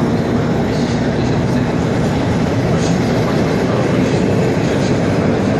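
Przewozy Regionalne passenger coaches rolling past along an underground station platform: a steady, loud running noise of wheels on rails, with a few faint clicks.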